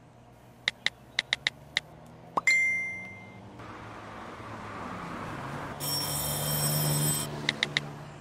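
Smartphone keyboard taps, a few quick ticks, then a short whoosh-and-ding of a message being sent, which is the loudest sound. Street noise follows and swells into a brief buzzing electronic ring, the doorbell, and more keyboard taps come near the end.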